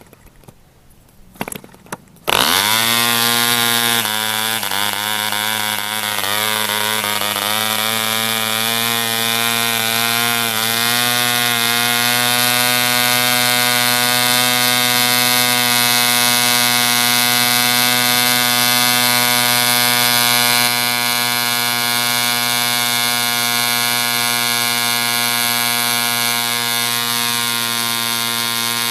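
A 1949 ED Mk IV 3.46 cc two-stroke model diesel engine swinging a 12x4 propeller. After a couple of flicks it starts about two seconds in and runs fast. Its pitch wavers up and down for several seconds as the compression and fuel needle are adjusted, then it holds a steady high-speed note once tuned.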